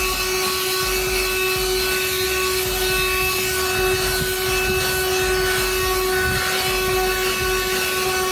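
iSYoung portable handheld car vacuum, powered from the car's power outlet, running with a steady whine while its brush attachment rubs over the car's floor carpet.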